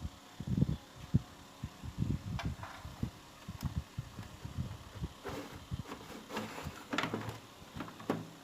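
Irregular knocks, taps and clicks of a television being handled and worked on during repair, with a few sharper clicks about five to eight seconds in.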